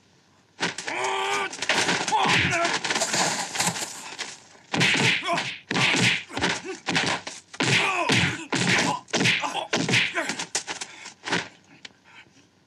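Fight-scene sound effects: a loud yell and grunts about half a second in, then a rapid flurry of punch and block impacts mixed with grunts, thinning out near the end.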